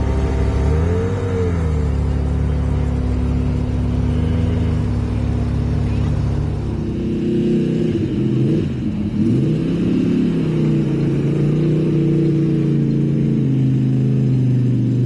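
Classic car engine running as the car rolls slowly past. After a change about six or seven seconds in, an Iso Grifo's V8 is revved up and down a couple of times, then runs steadily at low revs.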